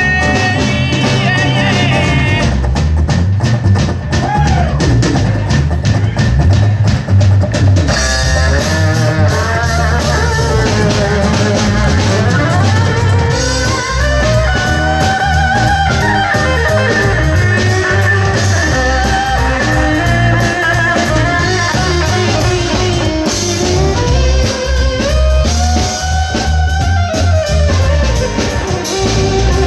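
Rock band playing an instrumental break: drum kit and guitar, with a lead line that bends in pitch coming in about eight seconds in.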